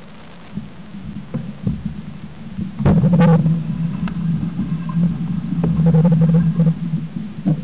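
Low rumble and rattle of a mountain bike's front wheel rolling, picked up by a camera mounted on the front fork beside the Bontrager tyre, with sharp knocks from bumps. The rumble gets much louder about three seconds in.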